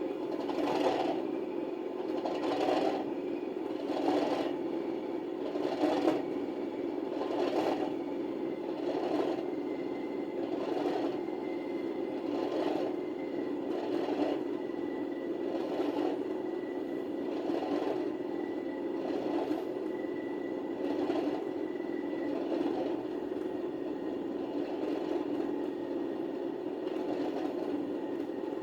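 Sound decoder of an OO gauge Class 37 model playing the English Electric diesel engine idling in its cold-start setting, through the model's small speaker. A steady throb with a regular beat about every second or two, more pronounced near the start.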